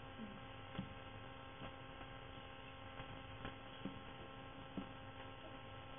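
Steady, faint electrical mains hum, with a few faint ticks scattered through it.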